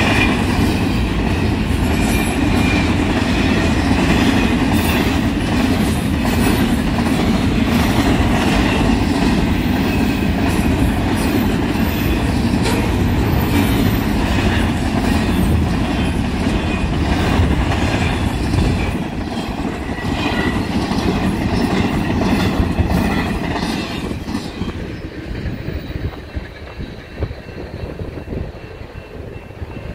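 Double-stack intermodal container cars rolling past on the rails: a steady wheel rumble with clicking over the rail joints. The end of the train passes and the sound fades away over the last few seconds.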